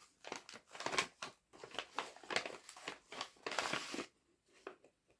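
Packaging crinkling and rustling in irregular bursts as it is opened and rummaged through by hand, dying down to a few faint rustles in the last second.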